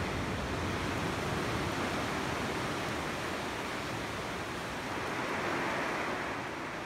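Steady rush of sea water and surf around a shallow coral rock pool, swelling a little about five seconds in.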